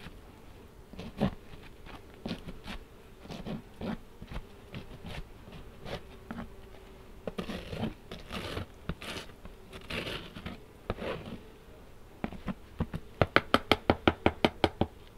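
Wooden beehive frames and a hive tool knocking and scraping during a hive inspection, over a faint steady hum of honey bees. Near the end comes a quick even run of about a dozen sharp clicks, the loudest sounds here.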